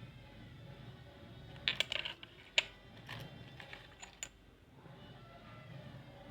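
A series of light clicks and taps from objects being handled. A quick cluster comes about two seconds in, the sharpest click follows shortly after, and a few lighter clicks come before the middle.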